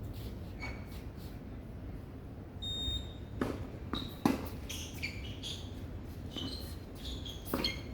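Tennis ball being struck and bouncing during a rally over a steady low background hum. A short high beep comes about three seconds in, then sharp hits follow, the loudest a little past four seconds, with another near the end.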